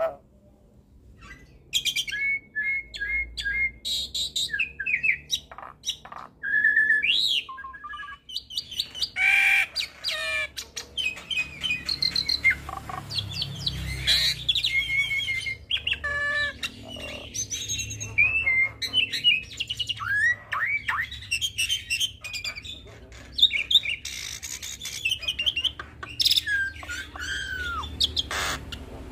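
Hybrid starling, a cross of Asian pied starling (jalak suren) and Nias hill myna, singing a varied, continuous song of whistles, rising and falling glides, repeated chirps and harsh squawky notes, full of borrowed phrases. It starts after about a second and a half of quiet.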